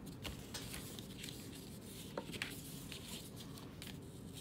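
Faint rustling and light scratchy ticks of a paper panel being handled as embroidery floss is drawn through its punched holes.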